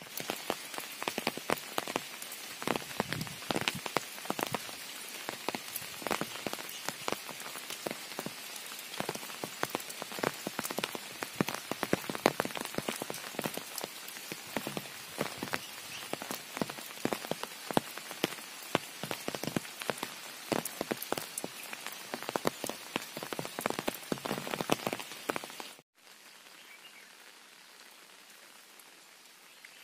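Heavy rain striking an umbrella held over the microphone: a dense, irregular rattle of drop impacts. About 26 s in it cuts off abruptly, and a softer, steady rain hiss follows.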